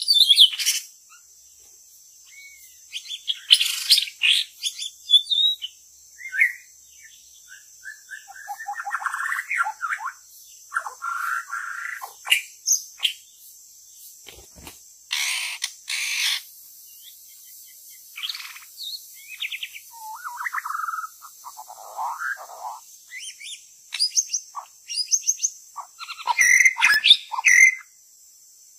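White-rumped shama singing: a long string of varied whistled and warbling phrases separated by short pauses, with a few short harsh notes among them, over a steady faint high-pitched hiss.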